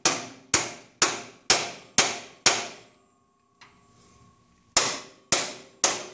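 Hammer blows on a metal bearing-installer tool, driving a one-piece Timken axle bearing into the axle tube of a GM 10-bolt rear end. Sharp ringing strikes come about two a second: six in a row, a break of about two seconds, then three more.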